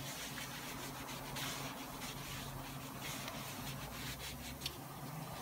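Foam applicator pad wiped over a plastic engine cover, spreading a vinyl and plastic protectant: faint rubbing in short, uneven strokes, over a low steady hum.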